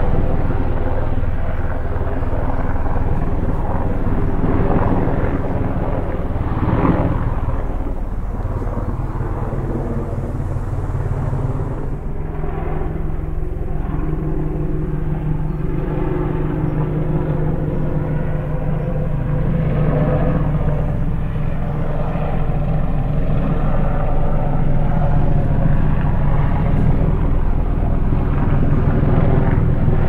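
Multirotor drone's propellers and motors humming steadily, with a shift in pitch about twelve seconds in as the motors change speed.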